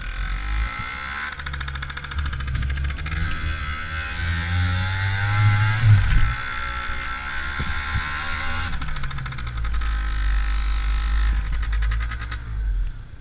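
Small motor scooter riding along, its motor rising and falling in pitch under a rush of wind on the microphone. There is a knock about six seconds in, and the motor sound drops away shortly before the end as the scooter pulls up.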